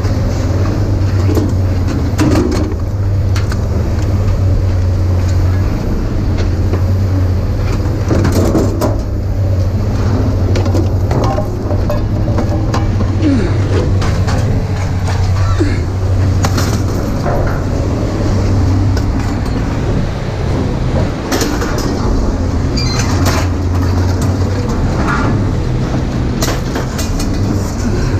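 A heavy engine running with a steady low drone, with scattered metal clanks and knocks over it.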